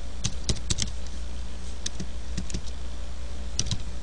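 Computer keyboard keystrokes and clicks, scattered one or two at a time with pauses between, over a steady low hum.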